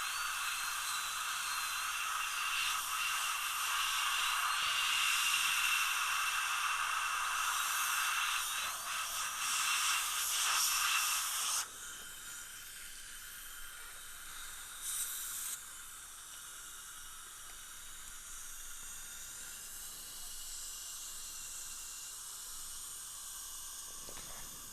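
High-speed dental handpiece with water spray running as it cuts an access hole through an implant crown, a steady whine over hiss. It stops abruptly about 12 seconds in, leaving a quieter steady hiss, with a short louder hiss about 15 seconds in.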